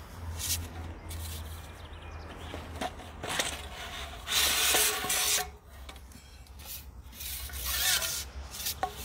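Fishing pole sections sliding and rubbing against each other and the holdall as they are pulled out and laid across it, in irregular scraping surges, the longest about four to five seconds in.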